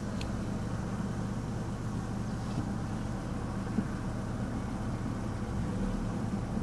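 A 2012 Ford Focus engine idling steadily, heard from inside the cabin.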